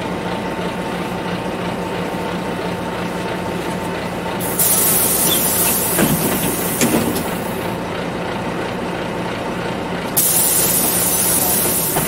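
Ride noise inside a city bus: a steady drone with a low hum, cut into twice by a loud hiss, about four seconds in and again near ten seconds.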